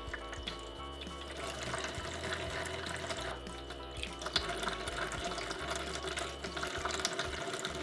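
Water running from a toy sink's faucet as toy fruit is washed, with small splashes and clicks, over soft background music.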